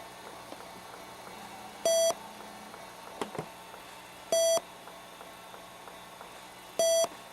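An electronic beep, a single steady tone, sounding three times at even intervals of about two and a half seconds, each beep about a quarter second long.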